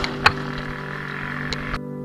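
Dirt bike engine running at a low, steady speed, with two sharp knocks; near the end the rushing noise cuts off suddenly, leaving only a steady hum.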